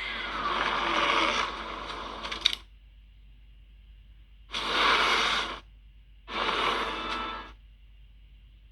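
Three separate bursts of monster sound effects made for the creature Skell Sol: a long one of about two and a half seconds ending in a sharp click, then two shorter ones about a second each.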